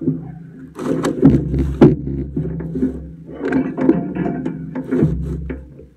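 Plastic lattice panel scraping and knocking against the timber post and framing as it is slid into place, with a few sharp clacks about one to two seconds in.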